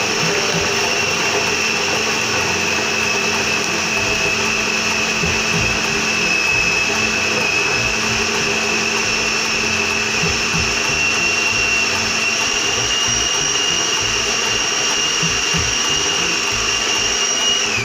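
Electric food processor running, its motor giving a steady high whine as the blade chops raw peppers, garlic, ginger and onion to a fine mince. The whine creeps slightly higher in pitch as it goes and stops abruptly at the end.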